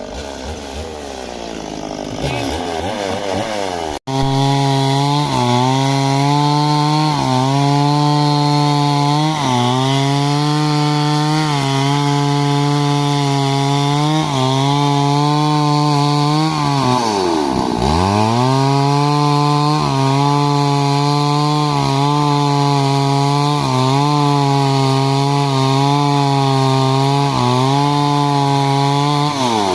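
Stihl MS 382 two-stroke chainsaw cutting wood at high revs, its pitch dipping briefly every couple of seconds under load. Early on it revs up, breaks off abruptly about four seconds in, then runs on steadily; at about 18 s the revs drop sharply and climb back, and they dip again near the end.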